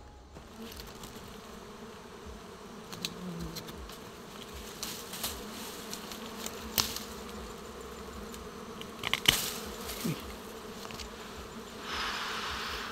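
Dwarf honey bees buzzing in a steady hum around their comb, disturbed while the comb is being harvested. Scattered sharp clicks and leaf rustles sound over it, the loudest click about nine seconds in, and a burst of rustling comes near the end.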